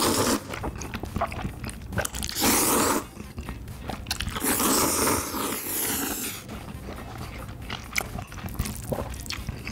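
Cream spaghetti noodles slurped up through the lips with a close-miked hiss, three times, the last slurp the longest, then wet chewing with small mouth clicks.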